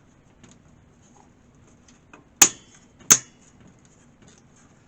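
Two sharp clicks about two-thirds of a second apart, near the middle, over faint handling noise: hard parts knocking or snapping together as a computer is assembled.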